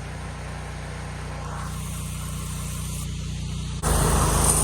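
Pressure washer's engine running steadily. Near the end a loud hiss of high-pressure water spray suddenly starts.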